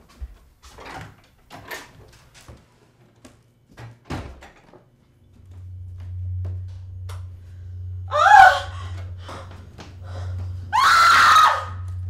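Scattered knocks and thuds, then a steady low hum comes in about five seconds in. Over it a woman screams twice: a short scream about eight seconds in and a longer one near the end.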